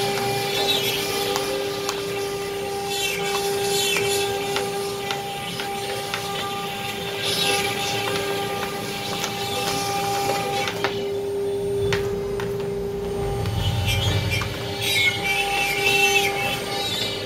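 CNC router running: the spindle gives a steady whine while the bit carves the board, with rasping cutting noise that swells and fades as the tool moves. The cutting noise drops away for a moment about two-thirds of the way through, then a brief low rumble comes before it picks up again.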